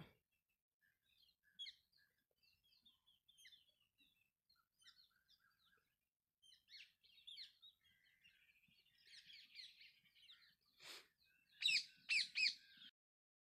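Faint background birds chirping and tweeting in short scattered calls, with three louder chirps close together near the end and a single click just before them.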